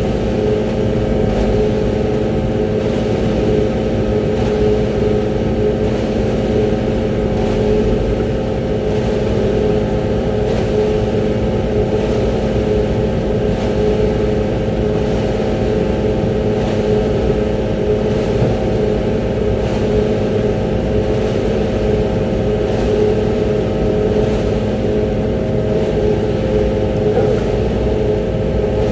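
Concrete mixer truck's diesel engine running steadily at raised revs, heard from inside the cab, with a steady hum.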